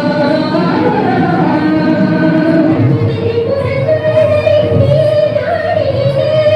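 Music with singing: a sung melody with long held notes over accompaniment.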